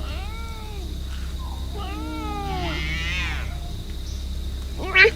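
Clouded leopard giving several meow-like calls that rise and fall in pitch, like an angry cat. A short, sharp call near the end is the loudest.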